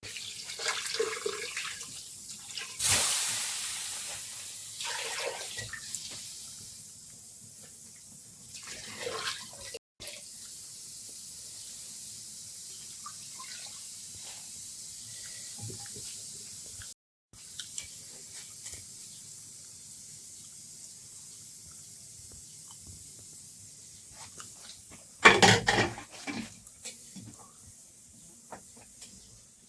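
Running water with a steady hiss, and louder splashing bursts about three seconds in and again near the end. The sound cuts out briefly twice.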